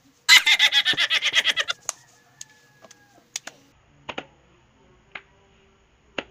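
A rapid pulsing burst about a second and a half long, then a few sharp, widely spaced slaps of palms clapping and patting together.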